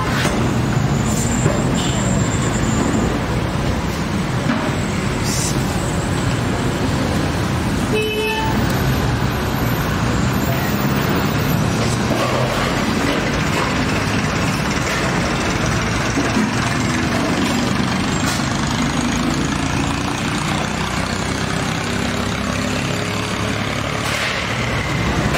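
Busy street traffic: a steady din of motor vehicles with background voices, and a short horn toot about eight seconds in.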